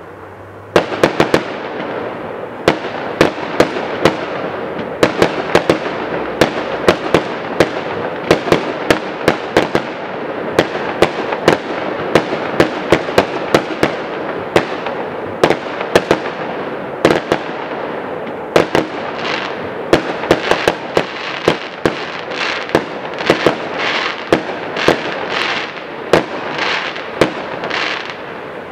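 Aerial fireworks display: a rapid, irregular string of sharp bangs from shells bursting overhead, over a continuous hiss, starting about a second in. Toward the end the bangs come in quick bursts of rushing hiss about twice a second.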